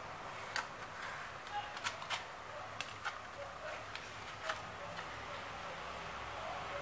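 Light, irregular clicks and taps of a steel ruler and pencil being set down and moved on an MDF board while lines are marked, over a faint steady hiss.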